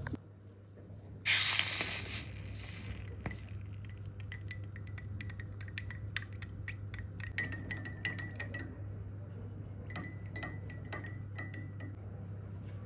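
A metal spoon stirring in a glass, clinking quickly and repeatedly against its sides, with a short loud rush of noise about a second in before the clinking starts. A steady low hum runs underneath.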